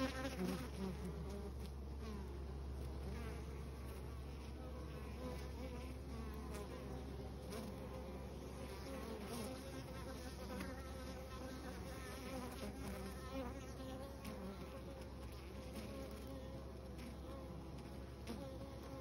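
Honeybees buzzing at the hive entrance, several wingbeat hums overlapping and sliding up and down in pitch as bees fly close by. Loudest right at the start.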